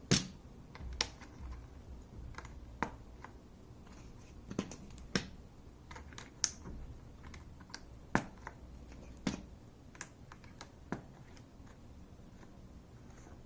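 Mechanical keyboard with freshly lubed switches, its keys pressed down one at a time: about a dozen separate sharp clacks at an uneven pace, most likely new PBT keycaps being pushed onto the switches.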